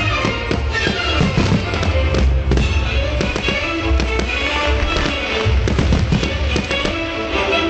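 Fireworks bursting and crackling in quick, irregular succession with deep booms, over loud music.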